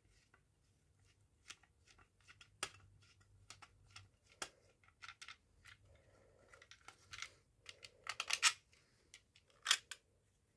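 Screwdriver working the screw of a plastic fire alarm call point: faint, irregular clicks and scrapes. Louder plastic clicks come near the end as the front cover is pulled off the housing.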